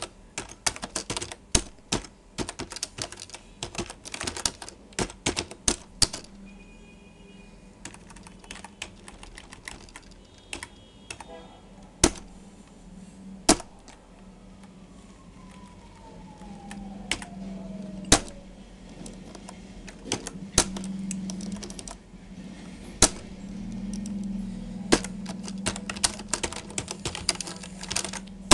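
Typing on a computer keyboard: quick runs of key clicks in the first six seconds, then sparser bursts with a few louder single clicks. A low steady hum sits underneath from about six seconds in.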